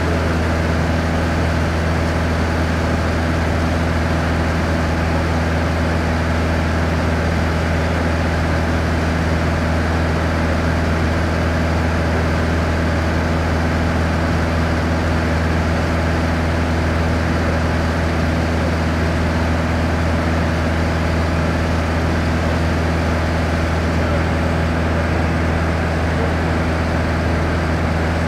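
Light touring aircraft's engine and propeller droning steadily, heard from inside the cabin, with a strong low hum under it.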